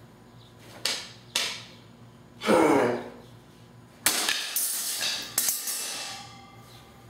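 Noise of a chair being built: two sharp knocks, then a heavier thud, then a couple of seconds of rough scraping broken by a few sharp knocks.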